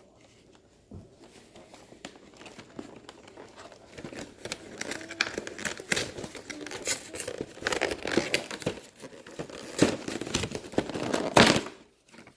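Plastic wrapping on a Pokémon trading card box crinkling and tearing as it is unwrapped by hand, a dense irregular crackle that is faint at first, grows louder from about four seconds in, peaks just before the end and stops suddenly.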